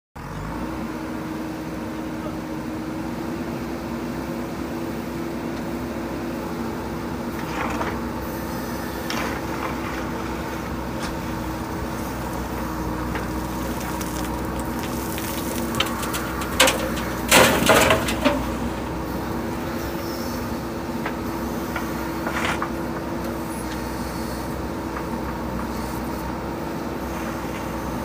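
JCB backhoe loader's diesel engine running at a steady pitch while the backhoe digs into a pile of crushed stone ballast. The bucket scrapes and knocks on the stones now and then, loudest in a burst of clattering impacts about halfway through.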